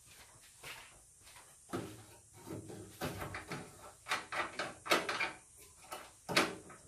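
Irregular clicks, knocks and light rattles of hands working metal fittings and wiring in a WWII Jeep's engine bay, disconnecting the headlight and blackout-light connections.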